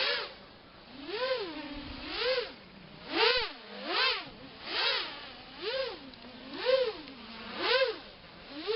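Brushless motors of an RG210 FPV quadcopter whining up and falling back in pitch about once a second, as the throttle is blipped during a pre-flight control check.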